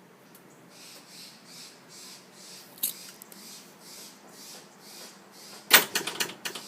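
Footsteps, then a gate swinging shut under its freshly tensioned spring: it closes with a sharp bang about five and a half seconds in, followed by a brief rattle.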